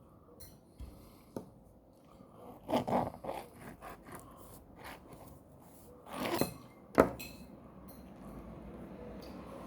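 Kitchen knife slicing a peach on a cutting board: scattered scrapes and knocks of the blade, the sharpest knock about seven seconds in.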